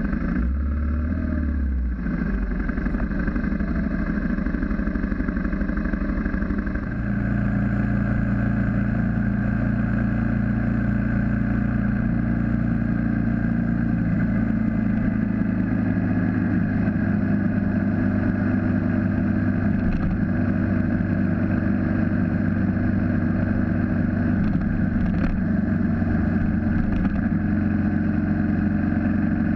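BMW G650GS single-cylinder motorcycle engine running under way. It shifts at low speed at first, then holds a steady cruising note from about seven seconds in.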